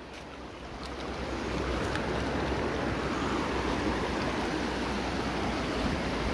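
Shallow river running fast over rocks and stones, a steady rush of water that swells over the first second and a half and then holds even.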